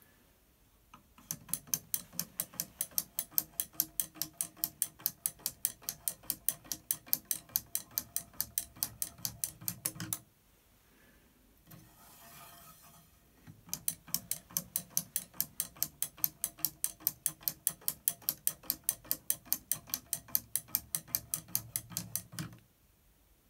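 Wooden climbing-monkey automaton working its way down a square wooden dowel: its wooden arms knock on the rod in a rapid, even series of clicks, about four or five a second. The clicking stops about ten seconds in, a short handling rustle follows as the monkey is reset, and a second run of clicks starts about fourteen seconds in and stops near the end.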